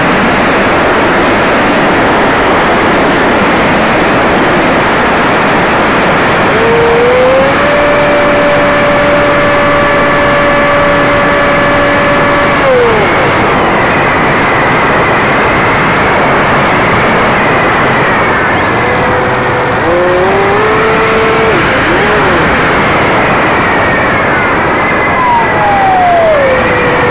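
Steady rush of wind and propeller noise picked up by a camera riding on a flying model aircraft. The motor's whine rises, holds one steady pitch for about five seconds, then drops away. Shorter wavering whines follow, and one falls steadily in pitch near the end.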